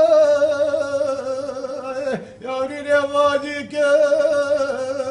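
A man singing unaccompanied in Turkish folk style: long held notes with a wavering pitch, each phrase bending downward at its end, broken by short breaths about two seconds and three and a half seconds in.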